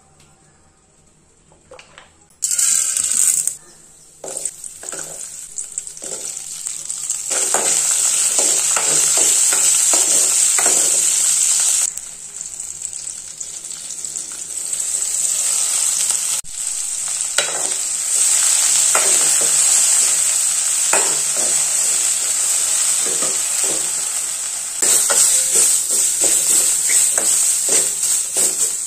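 Oil sizzling in a metal kadai as coriander seeds, garlic and fresh coriander leaves fry, with a steel ladle scraping and stirring against the pan. Nearly quiet for the first couple of seconds, then the sizzle rises to a loud hiss, dips about twelve seconds in and picks up again.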